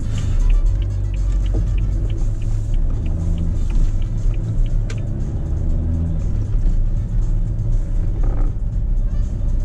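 Inside a moving car: the engine drones low and the tyres make road noise. A turn-signal indicator ticks about three times a second while the car turns, and stops about six seconds in.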